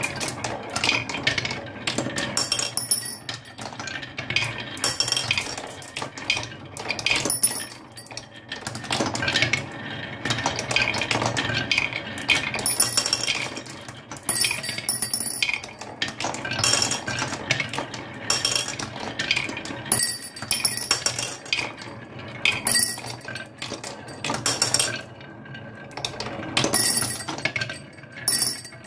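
Glass marbles rolling and clattering along a wooden marble run: a continuous patter of clicks and knocks as they wind down a wavy wooden slope and drop into a round wooden bowl. Brighter clinks ring out every few seconds.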